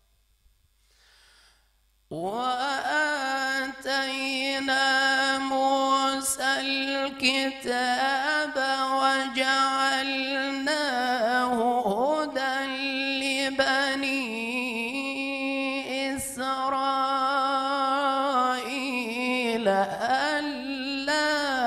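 A man reciting the Quran in the melodic, ornamented tajweed style. After a pause of about two seconds he comes in and draws out the words in long held notes with winding turns.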